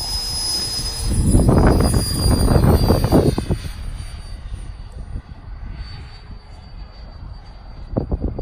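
Electric ducted fan of a FlexJet RC jet running at high throttle, a steady high-pitched whine. A loud low rushing noise comes in about a second in and lasts a couple of seconds, and another starts near the end.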